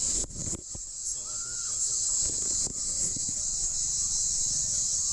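Steady high-pitched insect buzzing, with a few knocks in the first second.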